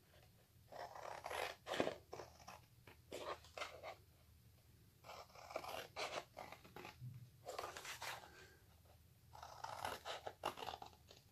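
Scissors snipping through thin white card in about five short runs of cuts, with pauses between them.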